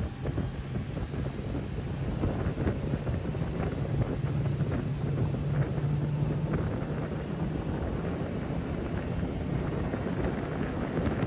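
A boat motor running steadily with a constant low hum, under wind buffeting the microphone.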